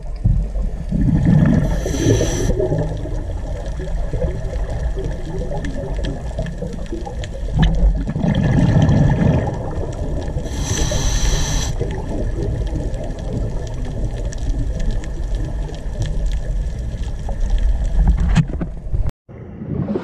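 Underwater ambience: a steady low rumble of water, with louder bubbling surges about a second in and again around eight seconds, and a short hiss around two seconds and again around eleven seconds.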